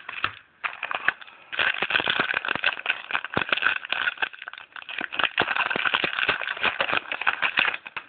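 Trading-card pack wrapper being torn open and crinkled by hand: a dense run of crackling rustles lasting about six seconds.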